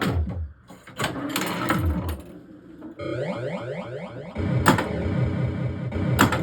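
1979 Williams Gorgar pinball machine in play: sharp mechanical clacks from flippers and bumpers, mixed with its electronic sound effects of falling tones. About three seconds in, a rapid repeating run of falling electronic tones starts and keeps going under more clacks.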